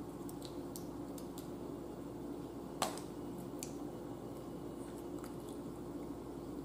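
A thin metal crab pick clicking and scraping against blue crab shell as the meat is picked out: scattered small clicks, one sharper click about three seconds in, over a steady low hum.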